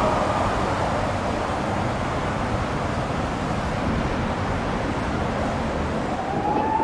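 Steady street traffic noise. Near the end a police car siren starts to wind up in one rising tone.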